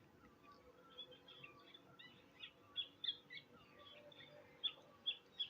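Several birds chirping and calling: many short, high chirps, busiest in the second half, with a repeated lower whistle that slides downward.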